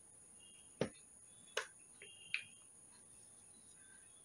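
Three short, sharp clicks about a second apart as hands work a glue stick and a paper flower, gluing its petals together, over faint room noise.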